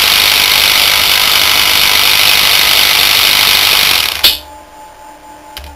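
A 24-volt DC brush motor in a wheelchair drive unit runs loud and steady through its reduction gearbox and differential. About four seconds in it stops abruptly with a sharp click as the power is cut.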